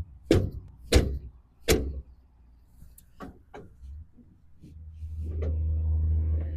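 Three sharp metal knocks about 0.7 s apart as a tractor's lower hitch link is kicked onto a rotary cutter's hitch pin, followed by a few lighter clanks. Toward the end a low tractor engine hum swells and holds.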